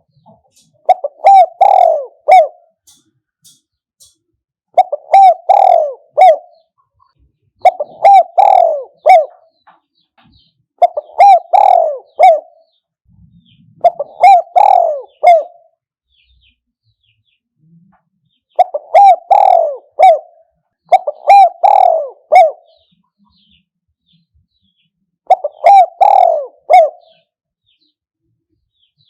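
Spotted dove cooing: eight phrases of several rolling coos each, roughly one every three seconds, with two longer pauses. It is the kind of call played as a decoy to lure wild spotted doves.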